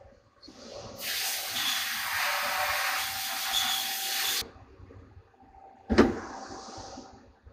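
Doosan CNC lathe working inside its enclosure: a faint steady machine whine, then a loud hiss that starts about a second in and cuts off sharply after about three and a half seconds. One sharp clunk follows near six seconds.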